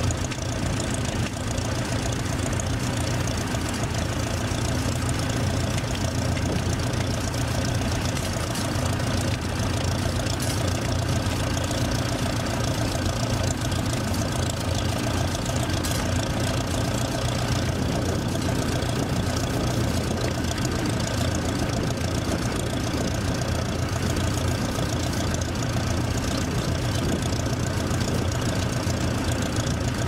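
Vintage tractor engine running steadily under load while pulling a mounted plough, a continuous low drone with no change in pace.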